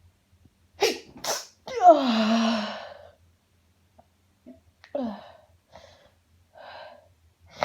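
A woman's sneezing fit. Two sharp catching breaths come first, then one loud sneeze whose voiced cry falls steeply in pitch, followed by softer gasps and smaller sneezes.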